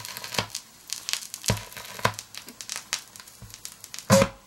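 BIC 960 record changer cycling: irregular clicks and crackles as the record drops to the platter and the mechanism works, ending in a louder clunk about four seconds in.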